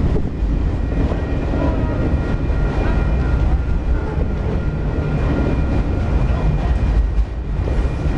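Freight train of autorack cars rolling past at close range: a steady heavy rumble of steel wheels on the rails, with a faint steady high-pitched whine over it.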